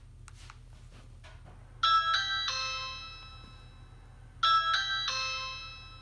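Ring doorbell chime set off by pressing the Ring Video Doorbell 2's button. After a few faint clicks, a bright three-note ding sounds and rings out, then sounds again about two and a half seconds later.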